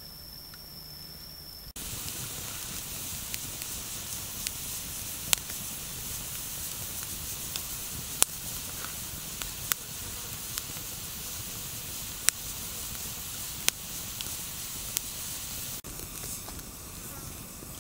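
Open wood fire burning under a green bamboo tube, hissing steadily with sharp crackles and pops every second or so. For the first couple of seconds a steady high insect drone is heard instead, until the fire sound cuts in.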